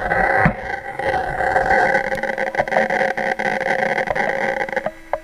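Quadcopter drone's electric motors and propellers running with a steady whine, held close; the sound cuts off abruptly near the end.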